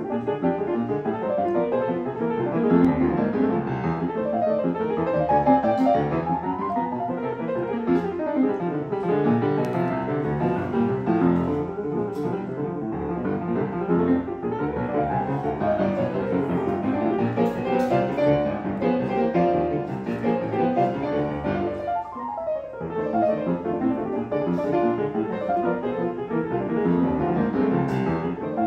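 Steinway Model B grand piano played solo with the lid open: a steady, dense stream of notes across the middle and upper keys, with a brief let-up about three quarters of the way through.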